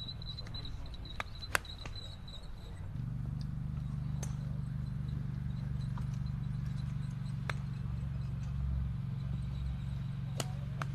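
Sharp clicks of golf clubs striking balls on a driving range, about five spread a few seconds apart, the strongest about one and a half seconds in. Under them runs a steady low rumble that gets louder about three seconds in.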